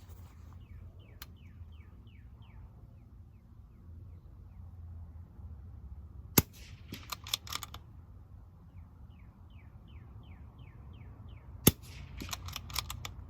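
Two shots from a Bergara B14R .22 LR bolt-action rifle, about five seconds apart. Each is followed by a quick run of metallic clicks as the bolt is worked to chamber the next round.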